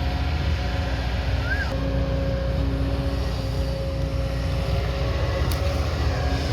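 Diesel engine of a heavy earthmoving machine, an excavator or backhoe loader, running steadily with a constant low hum.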